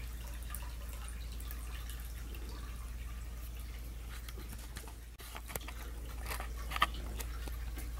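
Steady low hum with faint, scattered ticks and taps of kittens moving about on carpet, and one short, sharper tap near the end.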